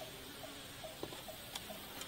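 Forest ambience: a short, soft call repeating a little over twice a second, over a steady faint hiss, with two light knocks about a second and a second and a half in as the bamboo platform is worked on.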